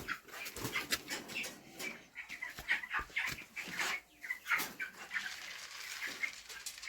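A flock of broiler chickens calling, with many short calls overlapping one another.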